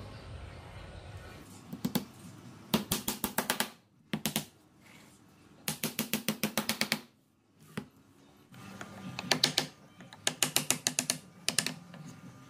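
Rapid runs of sharp taps, about nine a second, coming in several bursts of around a second each with short pauses between.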